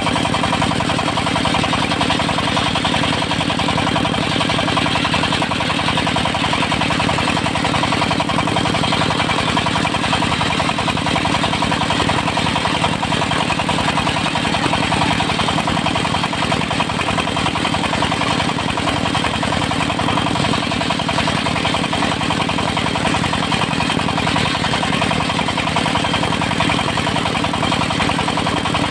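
Diesel engine of a portable circular sawmill running at a steady speed, with no change in pace throughout.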